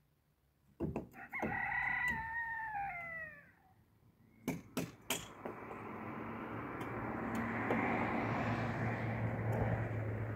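A rooster crowing once, a call of about two seconds that falls in pitch at its end. Then a few sharp clicks, and a steady hiss that grows louder toward the end.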